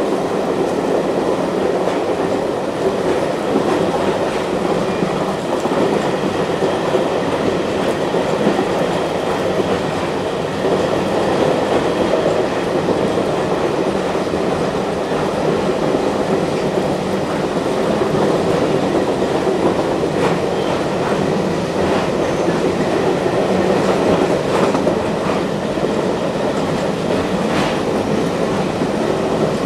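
Excursion train car rolling along the track at speed, heard from on board: a steady rumble of wheels on rail, with a few light clicks in the second half.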